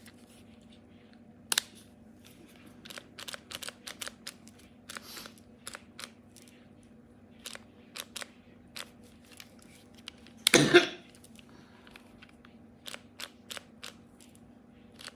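Scattered sharp clicks and taps of small hard objects being handled, with one louder rasping burst about ten and a half seconds in, over a faint steady hum.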